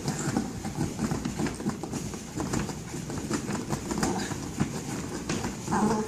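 A small dog attacking a large rubber play ball, clawing and biting at it against a fabric play tunnel: a steady run of quick, irregular scratches and knocks.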